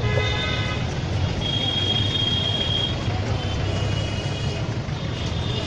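Busy street traffic: a steady hum of engines with horns sounding on and off, a cluster of horn tones right at the start and more later.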